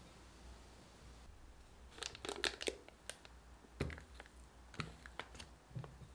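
Silicone spatula scraping thick batter into a plastic piping bag set in a cup, with the plastic bag crinkling and the spatula clicking against the rim. The sound comes in short crackly bursts that start about two seconds in.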